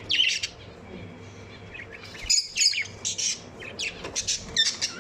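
Lovebirds chirping: short, sharp, high-pitched calls in quick clusters, one just after the start, then denser runs around the middle and toward the end.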